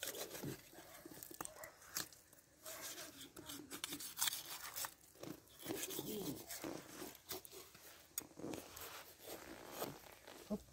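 Knife cutting meat and fat away from the ribs of a pig carcass: soft, irregular scrapes and clicks of the blade against flesh and bone.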